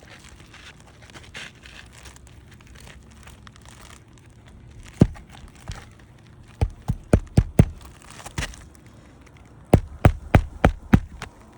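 Asphalt shingle rustling as it is handled and set in place, then a hammer driving roofing nails to fasten the sides of a replacement shingle: a single blow, then two quick runs of about five or six strikes each.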